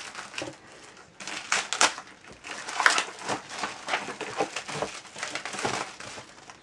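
Clear plastic bag crinkling as hands pull it open and handle the booklets inside. An irregular run of crackles, fainter for the first second and then busy.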